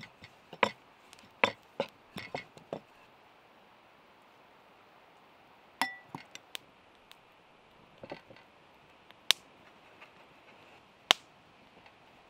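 A wooden rolling pin knocking and rolling on a wooden pastry board in a quick cluster of clicks, then a metal spoon clinking against a bowl with a short ring as herbs are scooped out. A few single sharp taps follow, from a metal fork pressing against the board.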